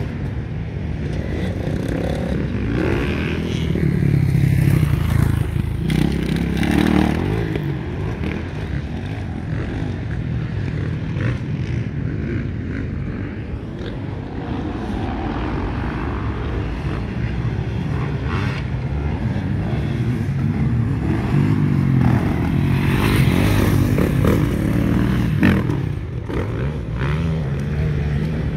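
Motocross dirt bike engines revving and easing off as riders pass over the track, the pitch rising and falling with the throttle; louder about four seconds in and again from about twenty-two seconds.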